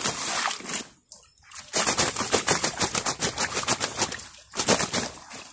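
A landed carp thrashing, heard as rapid, irregular wet slapping and splashing in two bursts, with short breaks about a second in and again just past four seconds.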